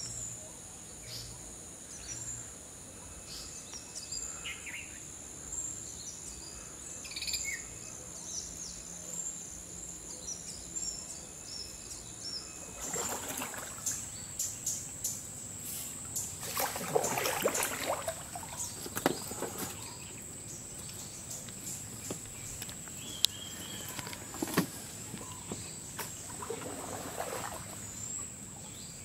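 Birds chirping over a steady high-pitched whine of insects. From about 13 seconds in, irregular splashing canoe paddle strokes in the water, with a few sharp knocks against the hull.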